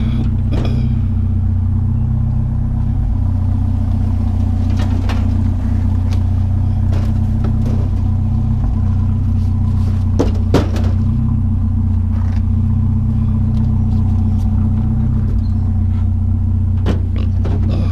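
Vehicle engine idling steadily, with a few short knocks and clunks over it as something is handled.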